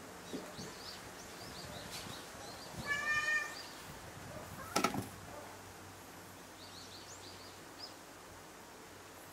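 A domestic cat gives one short meow about three seconds in, and a sharp click follows a second and a half later. Small birds chirp faintly in the background.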